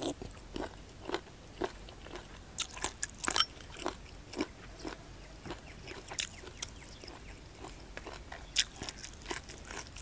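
Close-up chewing of hed phaw (Astraeus puffball) mushrooms with leathery skins, cooked in a curry. Irregular short crunches come as they are bitten, bunched about two and a half to three and a half seconds in and again about eight and a half seconds in.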